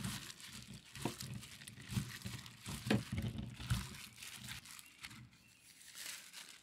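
Thin plastic glove crinkling as a gloved hand works cod pieces through wet egg batter in a metal bowl, with irregular soft crackles and rustles.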